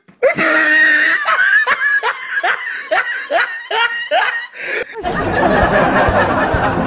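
A person laughing in a string of short snickers, about two or three a second, each dropping in pitch. About five seconds in, the laughter cuts off and loud music with a steady beat takes over.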